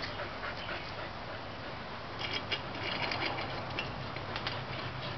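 Dogs moving close by: a run of quick small clicks and scuffles from about two seconds in, over a steady low hum.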